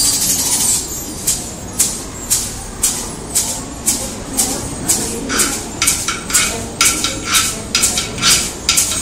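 Children's percussion band playing a steady beat of sharp strokes, about two a second, with shakers. From about five seconds in, a ringing metallic note sounds on each stroke.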